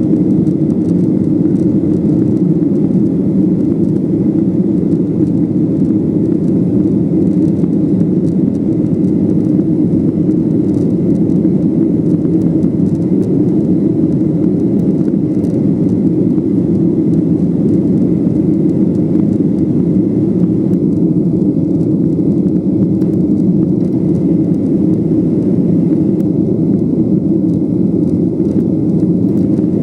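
Cabin noise inside a Boeing 737-800 climbing after takeoff: its CFM56-7B turbofans and the rushing airflow make a loud, steady, even rumble.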